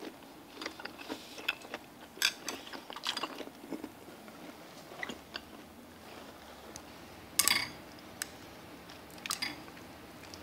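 Eating noodle soup with a metal spoon and chopsticks from a ceramic bowl: scattered light clicks and clinks of the utensils against the bowl, mixed with chewing, and a louder short burst about seven seconds in.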